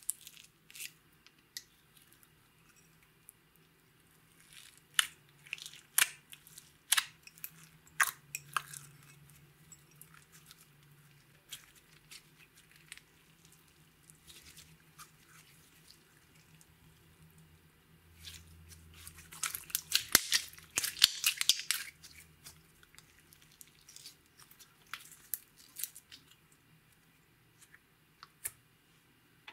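Clear slime being pressed, stretched and folded by hand with green sequin glitter worked into it, giving scattered sticky clicks and pops, with a dense run of crackling about twenty seconds in.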